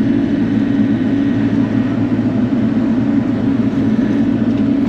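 Bobcat E42 mini excavator's diesel engine running steadily at a constant pitch.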